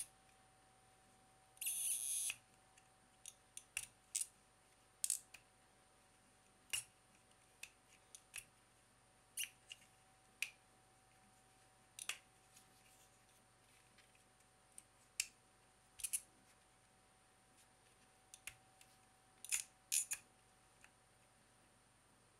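Plastic prisms of a Rubik's Snake clicking as they are twisted against one another: irregular sharp clicks every second or so, with a quick rattle of clicks about two seconds in.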